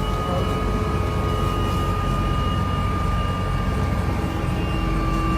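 Helicopter's turbine engine and rotor running steadily: a steady high whine over a low rumble.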